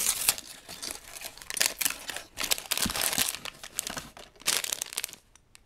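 A cardboard box flap being torn open and a clear plastic bag of Lego pieces crinkling as it is pulled out and handled, a busy run of rustles and crackles that stops about five seconds in.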